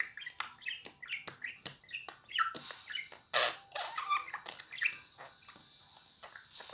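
Budgerigar chattering: a quick run of short chirps, clicks and scratchy warbles, thinning out to a quieter stretch in the last second or two.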